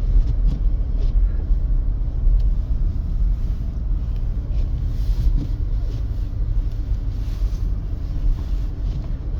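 Steady low rumble of a 2025 Mercedes-Benz GLC 300 driving slowly on a snow-covered road.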